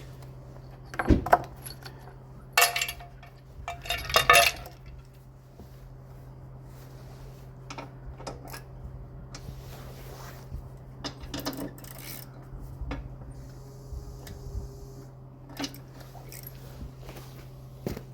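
Metal tools and parts clinking as a 13 mm socket set works the bolts on a Camon scarifier's quick-release cartridge: three loud sharp clanks in the first five seconds, then lighter ticks and taps, over a steady low hum.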